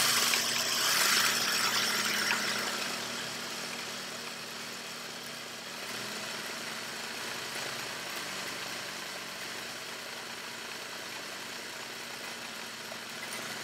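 Juki DDL-8700 industrial single-needle lockstitch sewing machine running steadily with its pedal held down, driving the bobbin winder to fill a bobbin while the whole machine runs as if sewing, needle unthreaded. Louder for the first three seconds or so, then settling to a steadier, quieter run.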